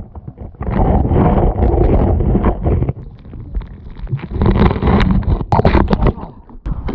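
Loud rumbling noise from a camera being fumbled and jostled, with wind buffeting the microphone and a few sharp knocks near the end.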